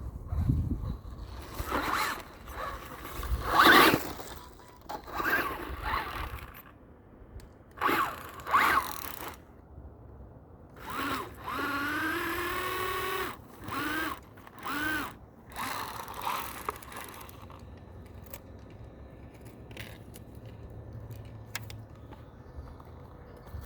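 Electric RC car's motor and drivetrain whirring in short bursts as the throttle is worked, with its tyres scrabbling on dirt during a hill climb. For a couple of seconds in the middle the motor rises to a pitched whine, followed by two brief whines. The last several seconds are quiet.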